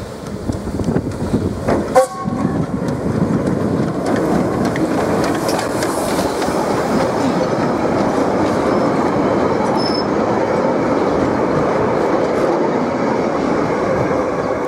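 A steam locomotive and its carriages pass close by, their wheels rumbling and clattering over the rails. There is one short, sharp clank with a brief ring about two seconds in.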